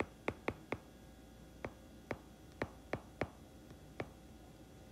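A stylus tapping and clicking on a tablet's glass screen during handwriting: about ten sharp, irregularly spaced clicks as the word 'perpendicular' is written out.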